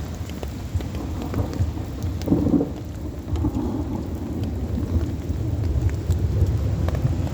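Heavy rain falling, with scattered drops ticking and a continuous low rumble of thunder that swells briefly about two seconds in.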